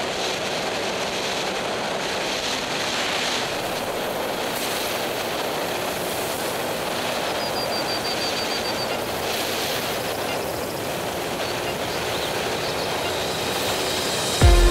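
Steady wind and road rush on an action camera riding a KTM 690 Enduro R motorcycle at speed; no clear engine note stands out. Music cuts in abruptly just before the end.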